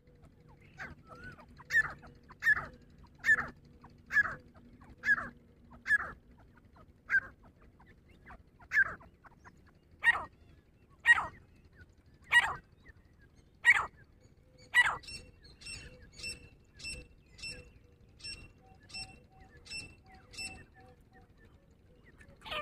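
Grey francolin calling: a series of loud, separate call notes about a second apart, growing louder partway through. Near the end a fainter, quicker train of short high notes follows, about two a second.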